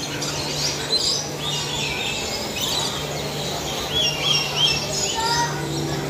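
Parrots in an aviary chirping and twittering, many short high calls overlapping throughout, over a low steady hum that stops and starts.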